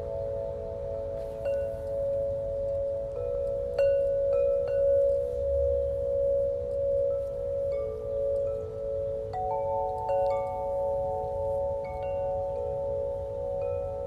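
Soft ambient background music: held tones that shift pitch a few times, with light bell-like chime notes scattered over them.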